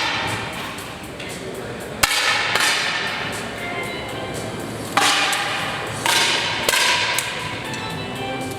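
Air rifle shots: four sharp cracks, one about two seconds in and three between five and seven seconds, each followed by a ringing decay.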